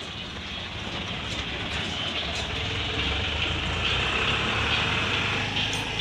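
A road vehicle passing by: a rushing noise with a low rumble that swells to its loudest past the middle and eases off near the end.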